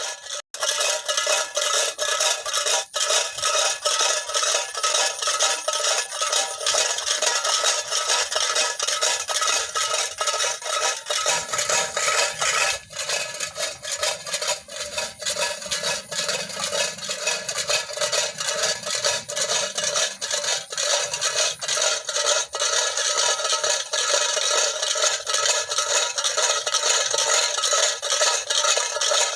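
Tin-can bird scarer: old cans filled with small stones, jerked along a rope, rattling and clanking without a break to drive sparrows from a rice field.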